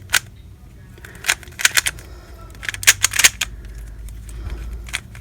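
MoYu RS3M 2020 3x3 speedcube, freshly lubricated, being turned quickly during a solve. The layers click and clack in irregular quick clusters of sharp snaps.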